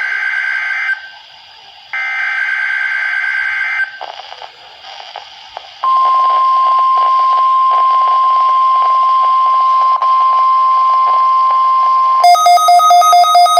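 NOAA Weather Radio weekly test alert: two bursts of the buzzy SAME digital header in the first four seconds and a short stretch of hiss, then the steady 1050 Hz warning alarm tone held for about six seconds. Near the end a rapid pulsing beeping starts.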